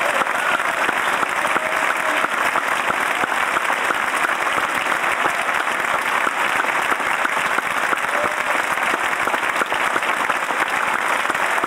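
Audience applauding steadily, a dense sustained clapping.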